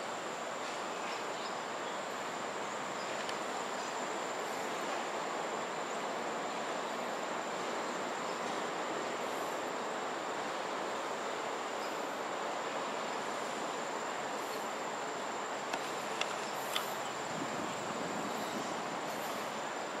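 Outdoor park ambience: a steady, even rush of background noise with one constant high-pitched insect drone over it, and a few faint ticks late on.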